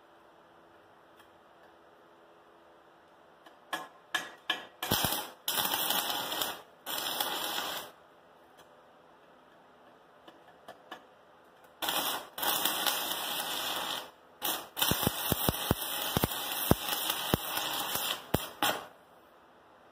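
Stick-welding arc from a 36-volt battery-powered arc welder burning a 7018 electrode. A few quick strikes start the arc about four seconds in, then come crackling runs of a few seconds each, with a pause of several seconds in the middle.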